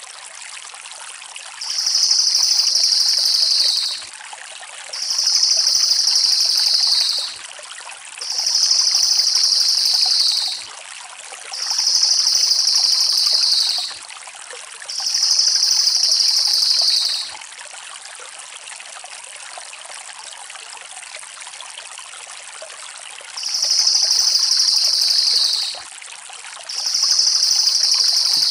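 Crested jay (cililin) repeating a fast, high rolling call seven times. Each roll lasts about two seconds and drops slightly in pitch by the end. There is a longer pause before the last two rolls, and a steady hiss like running water continues underneath.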